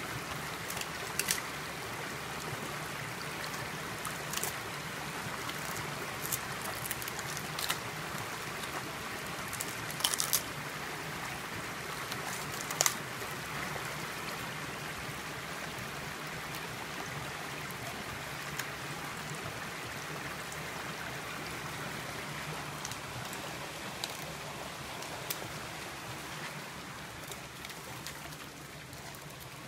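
Shallow creek running steadily over rocks, with a few brief sharp splashes and knocks as two dogs wade and tussle in the water.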